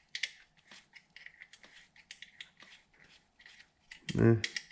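Irregular light clicks and ticks of small hand tools and metal parts being handled, several a second, with a brief voice sound near the end.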